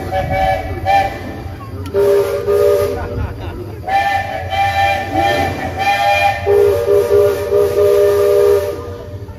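Steam locomotive whistle blowing a series of short toots, each a chord of several tones, alternating between a higher and a lower chord. The final group is longer and ends near the close.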